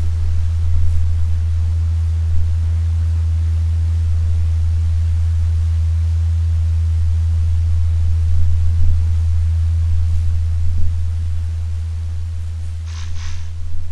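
A steady, deep low hum with a faint hiss over it, easing off slightly near the end. About a second before the end, a brief fluttering burst of higher, crackly noise.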